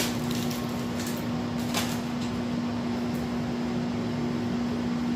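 A steady low electrical hum from a running household appliance, with a few soft clicks.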